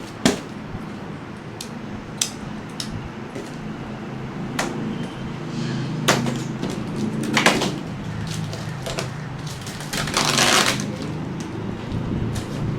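Cardboard box being opened and packing handled: scattered knocks and clicks of flaps and parts, with a longer rustle of packaging about ten seconds in, over a steady low hum.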